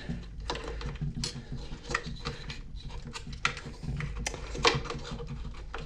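Irregular small clicks and rattles of plastic parts being handled as the throttle cable and trigger are fitted into the handle housing of a Stihl BG55 leaf blower.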